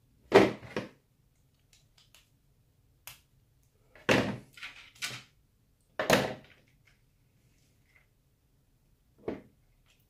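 Sharp knocks of tools and small RC axle parts against the housing and workbench while a part is worked out of the portal gearbox housing: a pair at the start, a quick run of three about four seconds in, a single loud one about two seconds later and a lighter one near the end.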